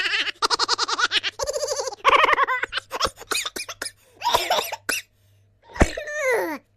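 Laughing sound effects: a voice laughing in quick, evenly pulsed bursts, then shorter laughs with pauses between them, and near the end a laugh that falls in pitch.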